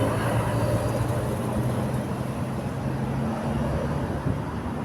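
Bus engine running with a steady low drone over road noise.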